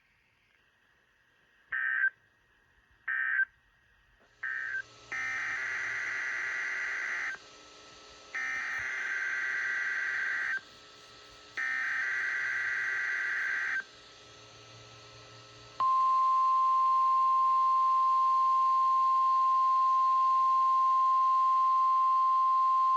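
NOAA Weather Radio SAME data bursts: three short end-of-message bursts, then three longer header bursts about a second apart, each a buzzing two-tone warble. About 16 seconds in the steady 1050 Hz warning alarm tone starts and holds, sounding the weekly test of the warning alarm.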